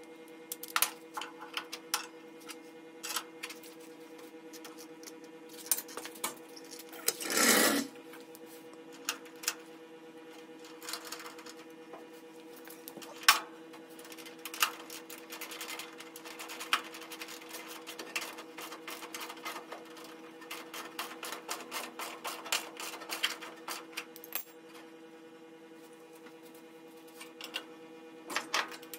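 Metal clicks and clinks of hand work as a bushing and bolt are fitted to an early Ford Bronco's steel front floor brace. There is one longer scraping rush about seven seconds in, then a stretch of rapid clicking in the middle, all over a steady hum.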